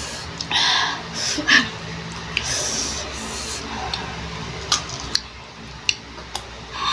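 Crunching bites and chewing of crisp unripe Indian mango slices, in short noisy bursts with a few sharp clicks in the second half.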